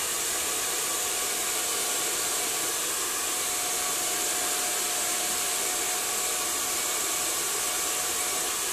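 Handheld hair dryer running steadily, blowing a constant rushing hiss with a faint steady tone under it, as long hair is blow-dried straight.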